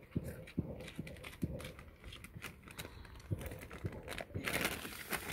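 A small child's sandalled footsteps tapping on tarmac as he walks, then a crisp packet crinkling in his hand near the end.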